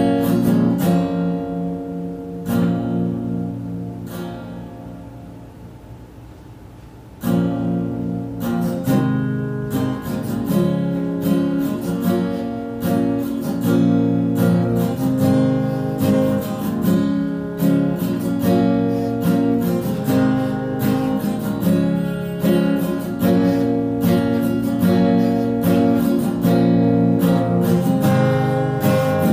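Background music on strummed acoustic guitar. A chord is left to ring and fade for several seconds, then the strumming comes back suddenly about seven seconds in and keeps a steady rhythm.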